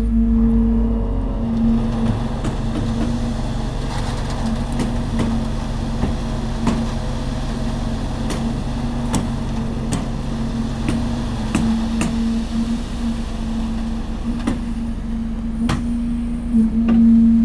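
Concrete-pour machinery running steadily: the deep rumble of the pump and mixer truck diesels under the constant hum of an electric poker vibrator working the wet concrete. Scattered sharp knocks come from work on the formwork and hose, and the hum grows louder near the end.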